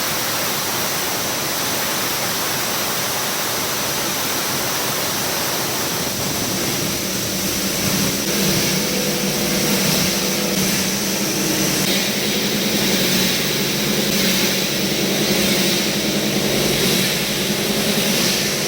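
RE25 plastic runners grinder with its cyclone blower running: a steady rush of air. About six seconds in, a steady machine hum joins and the sound grows louder.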